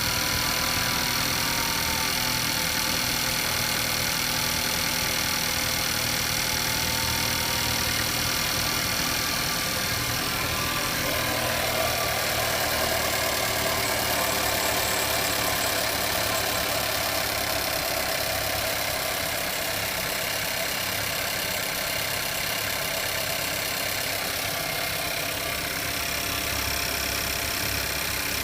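Skoda Kodiaq engine idling steadily with a knock in it, which the owner takes for an engine fault.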